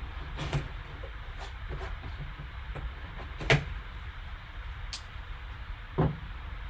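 Handling of a sealed card box: three sharp knocks, about half a second, three and a half and six seconds in, with fainter clicks and ticks between, over a steady low hum.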